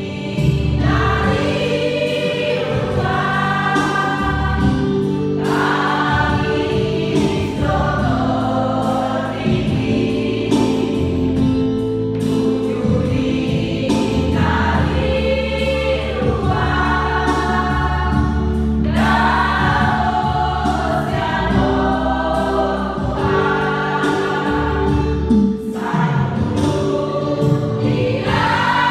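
Women's choir singing a gospel hymn together, phrase after phrase, over a steady instrumental accompaniment of held low notes.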